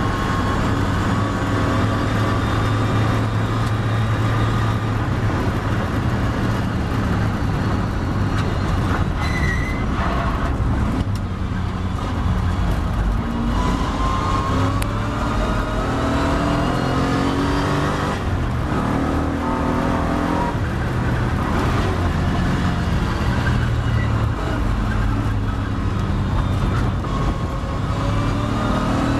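Triumph TR7 race car's engine heard from on board, running at high speed, then easing off for a corner about ten seconds in. It then pulls hard again, the revs rising several times as it climbs through the gears.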